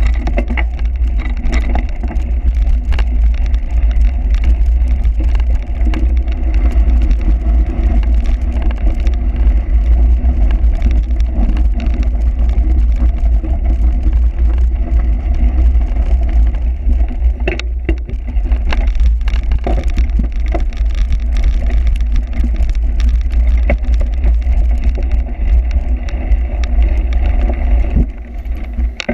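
Loud, steady wind rumble on the microphone with the clatter and rattle of a cyclocross bike riding over rough ground; it eases off near the end.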